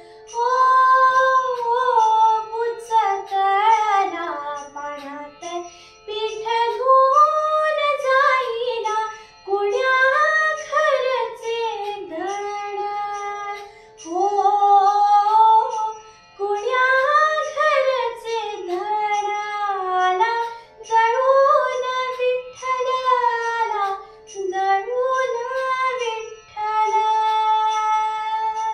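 A young girl singing a Marathi devotional song solo, in long gliding, ornamented phrases with short breaths between them, over a faint steady drone.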